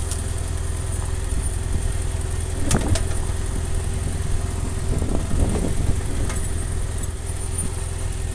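Adventure motorcycle engine running at low revs on a rough dirt-trail descent, with a steady low rumble. A sharp knock about three seconds in and a few rattles around five to six seconds in come from the bike jolting over the ruts.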